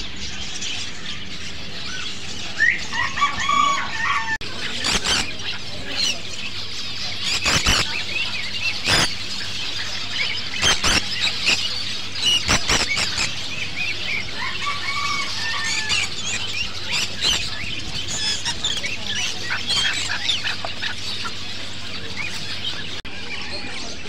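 A flock of caged pet birds (budgerigars, zebra finches, conures and lovebirds) chirping and chattering together in a constant high twittering. Shrill screeches break through about five times, mostly in the middle stretch.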